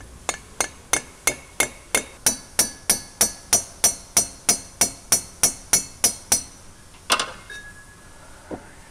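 Hammer tapping steadily on a steel bolt threaded into a stuck pump impeller, about twenty sharp metallic taps at about three a second, the vibration meant to walk the impeller off its shaft. The taps stop about six seconds in, followed by one louder metallic clank with a brief ringing tone and a faint knock near the end.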